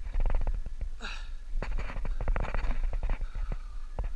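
Low rumble of wind and rubbing on the microphone, with many irregular clicks and ticks from handling the fly rod, line and reel while playing a hooked carp.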